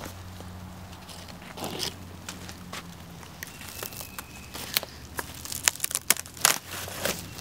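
Dry sheets of tree bark being handled and pressed against a stick frame: scraping and crackling, with a quick run of sharp cracks in the second half.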